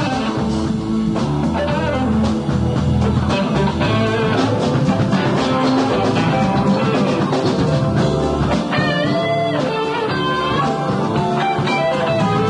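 Live band playing a rock number, with guitar and drum kit.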